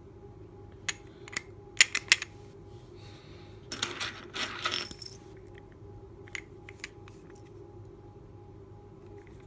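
Metal clicks and clinks of a small alarm padlock and its key being handled, with a short clattering rattle about four seconds in.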